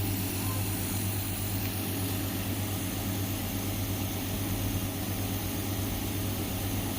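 Compressor nebulizer running: a steady electric hum with a hiss of air.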